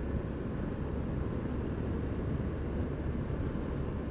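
Steady low rumble of wind and engine noise from a BMW R1200 R boxer-twin motorcycle riding at an even speed, picked up by a helmet-mounted camera microphone.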